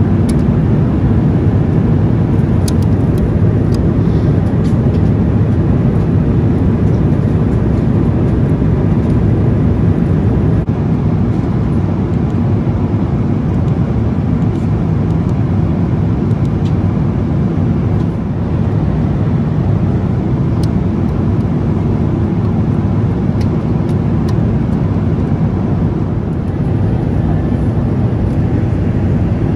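Steady, loud low drone of a Boeing 777-300's economy cabin at cruise: engine and airflow noise from the airliner, with a few faint clicks.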